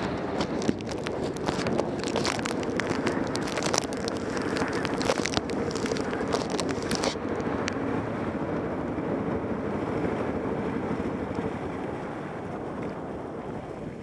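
Motorcycle running at a steady road speed, with wind rushing over the microphone. Through the first half, a dense crackle of sharp clicks rides on top, which stops about seven seconds in.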